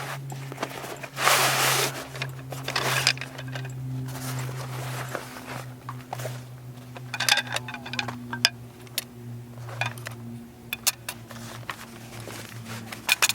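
Rustling and short clicks and clatters of things being handled, over a steady low hum.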